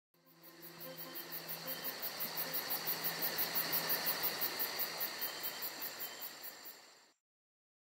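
Insects chirping in a fast, even pulse of about five chirps a second over a steady hiss, swelling in and then fading out.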